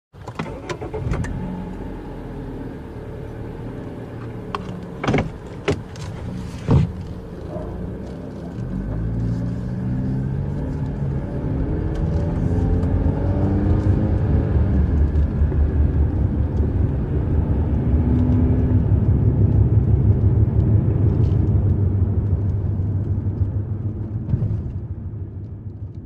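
SUV engine running at low revs with a few sharp clicks and knocks about five to seven seconds in, then pulling away and accelerating, its engine note rising in pitch and getting louder before easing off and fading near the end.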